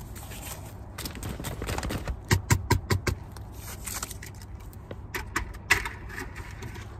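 A person coughing, four sharp coughs in quick succession about halfway through, from choking on a French fry. Rustling and clicking from handling goes on around the coughs.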